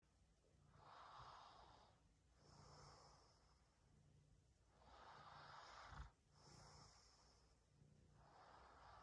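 A sleeping person snoring faintly, slow noisy breaths in and out, about one full breath every three and a half seconds. A brief low thump about six seconds in.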